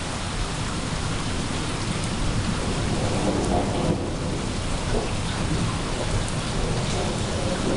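Steady rain falling, with a low rumble of thunder underneath.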